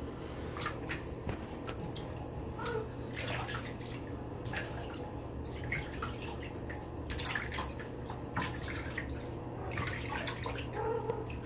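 Water dripping and splashing in a bathtub around a wet cat being held, in short irregular splashes over a steady low hum.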